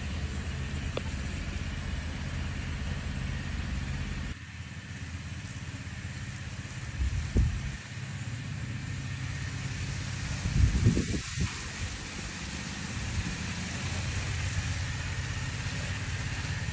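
Small engine of a power sprayer pump running steadily, a low hum, with two brief louder low rumbles about seven and eleven seconds in.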